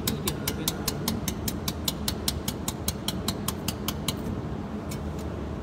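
Desktop jewelry laser welder firing a rapid, even train of sharp pulse clicks, about five or six a second, over a steady low machine hum. The pulse train stops about four seconds in, followed by two single clicks.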